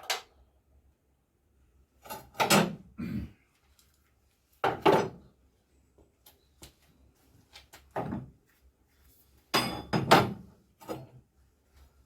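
A series of five or six separate clunks and knocks from parts or tools being handled and set down, each about half a second long with a short ring, spaced a second or two apart.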